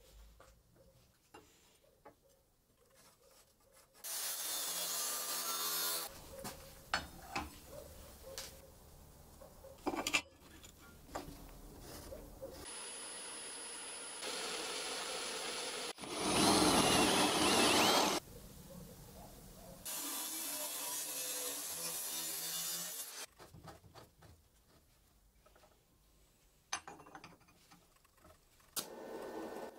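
Handheld power tool, most like an angle grinder, run in several bursts of a few seconds each, grinding a small steel plate, the loudest burst with a thin high whine over it. Knocks and clatter of metal parts being handled on a wooden bench in between.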